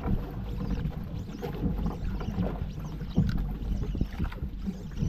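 Small boat on open water: a steady low rumble of wind and water, with scattered knocks and clicks.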